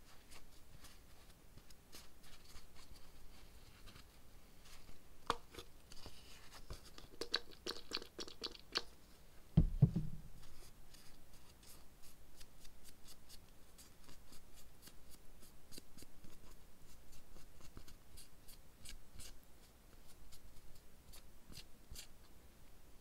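Lint-free nail wipe, wet with gel cleanser, rubbing over gel-coated extension nails to clear oil residue from the surface. It makes light rubbing strokes in a quick run in the middle, with many small ticks and clicks of the long nails. About ten seconds in there is one dull thump.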